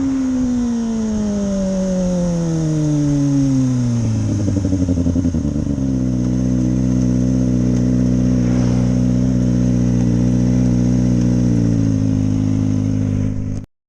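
Kawasaki ZX-25R's 249 cc inline-four through an SC Project slip-on exhaust, its revs falling smoothly over about five seconds as the bike slows, then settling to a steady idle. The sound cuts off suddenly near the end.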